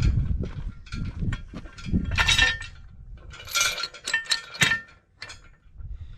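Metal clinking and clanking: a run of light knocks with short bursts of metallic rattle, about two seconds in and again from about three and a half to nearly five seconds.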